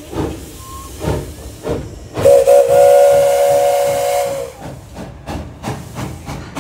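Porter narrow-gauge steam locomotive: a few separate exhaust chuffs, then its steam whistle blows one long blast of about two seconds, the loudest sound. Quicker chuffs follow as it moves off.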